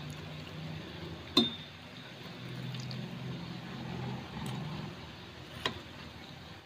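Sweet potato balls frying in a pot of hot oil, a steady sizzle over a low rumble, with metal tongs clicking against the wire strainer twice, about a second and a half in and near the end.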